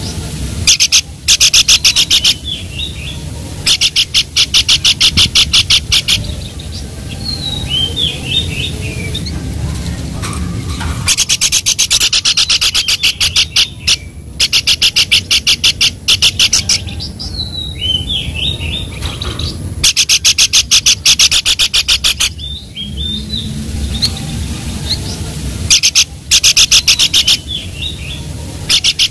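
Pelanduk babbler song: loud, rapid rattling trills, each lasting about two seconds and repeated several times, with short falling whistled notes between them.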